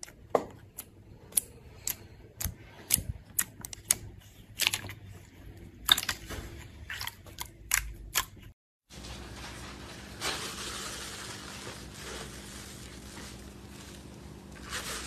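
Clear jelly slime squeezed and pressed by hand in a plastic box, giving sharp, irregular pops and clicks, about two a second. After a short break there is a steady hiss as a green textured slime is stretched and pulled.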